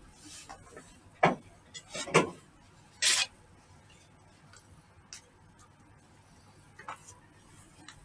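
Handling noises as small objects are picked up and set down: sharp knocks a little over one and two seconds in, a short rustling hiss about three seconds in, and a fainter click near seven seconds, otherwise quiet.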